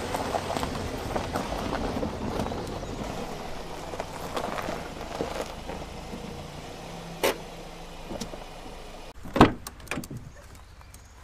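SUV engine running on a dirt track, then the engine stops about nine seconds in and a car door latch clicks twice as the door opens.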